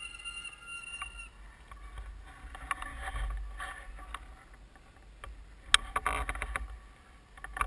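Bicycle clicking and rattling as it is ridden over rough ground. A high steady tone fades out in the first second or so, and one sharp knock comes about six seconds in.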